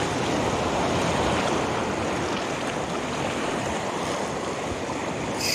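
Ocean surf washing in a steady rush.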